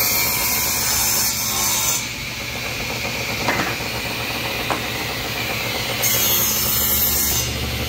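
Table saw cutting a small wooden board: a loud cut at the start and a second one about six seconds in, with the blade running between cuts.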